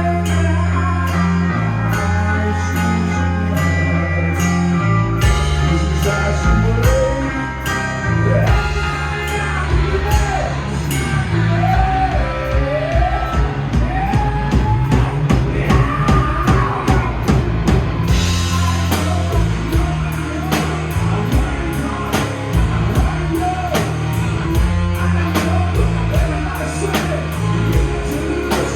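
Rock song: a voice singing over guitar, bass and drum kit. The singing comes in after a few seconds of guitar, and the drumming becomes steady and busier about two thirds of the way in.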